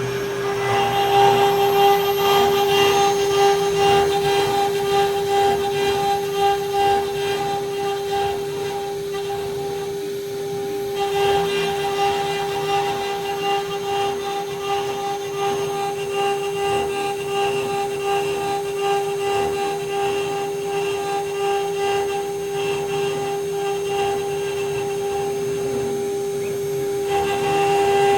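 Desktop CNC milling machine spindle running with a steady whine while the cutter engraves a metal mold, with a rough cutting noise on top. The cutting noise eases off twice, about ten seconds in and near the end, while the spindle keeps running.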